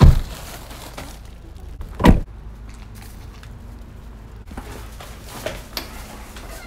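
Car door thuds: two loud heavy thumps about two seconds apart. Near the end comes the faint clicking of a house door's latch and handle being opened.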